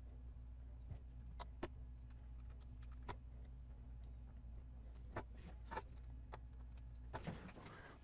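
Faint, scattered clicks and taps of small tools and screws being handled on a repair bench, over a steady low hum, with a short rustle about seven seconds in.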